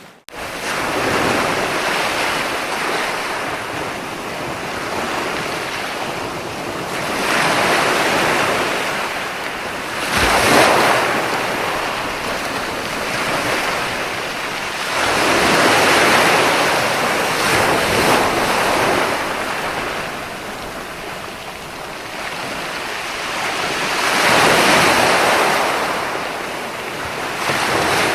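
Ocean waves breaking on a shore, a steady wash of surf that swells with each breaking wave every few seconds and then fades back.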